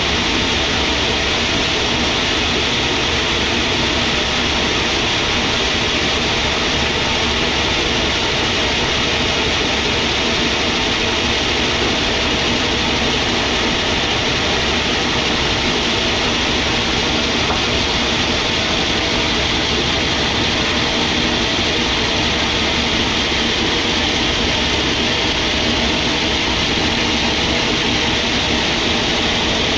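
Sawmill machinery running with a loud, steady noise that does not change.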